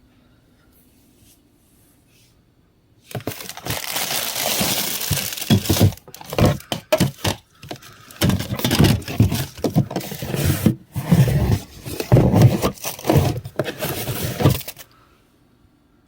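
Close, loud rummaging and handling of shower things: crinkling, scraping and knocks as items are pulled out and moved. It starts about three seconds in and stops near the end, with a few short pauses.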